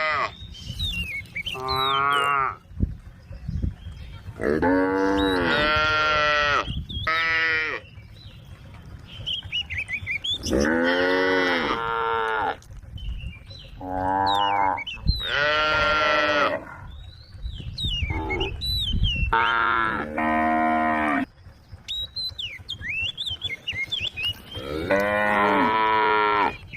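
Cattle mooing, about ten long, drawn-out calls one after another with short gaps between them.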